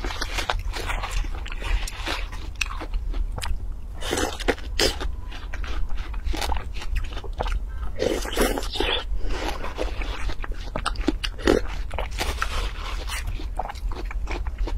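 Close-miked eating of juicy watermelon: a metal spoon scooping into the flesh, then crisp bites and wet chewing in quick irregular clicks and crackles. A steady low hum runs underneath.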